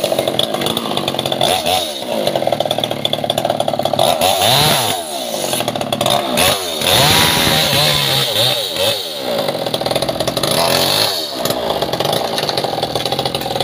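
Two-stroke chainsaw running, revved up and let back down to idle repeatedly.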